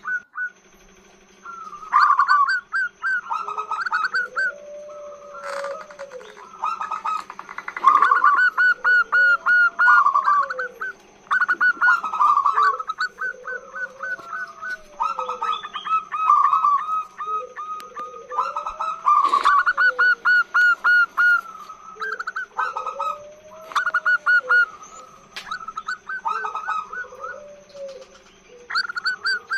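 Female zebra dove (perkutut) cooing: repeated runs of rapid staccato notes every couple of seconds, with softer rising-and-falling low coos between them and a faint steady hum underneath.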